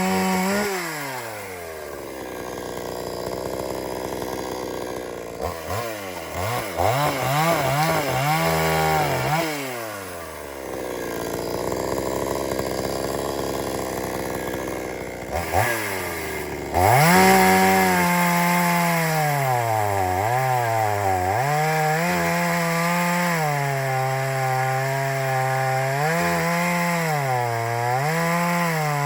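Two-stroke chainsaw engine falling from high revs to idle, blipped a few times, then held at full throttle from about two-thirds of the way in. From there its pitch keeps sagging and recovering as the chain bites into a log.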